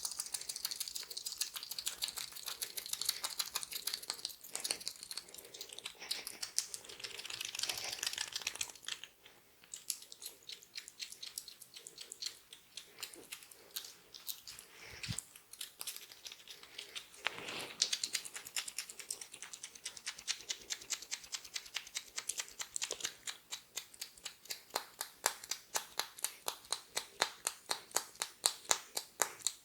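Oiled hands massaging the neck, with wet, sticky skin-on-skin clicks and crackles. Near the end they turn into a quick, steady rhythm of pats or slaps, about four a second.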